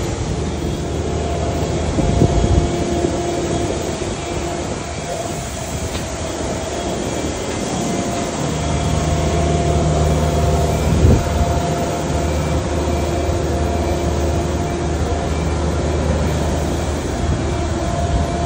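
Steady mechanical drone of engines running on an airport apron: a low hum with a few held tones over a constant rush of noise, and a brief knock about eleven seconds in.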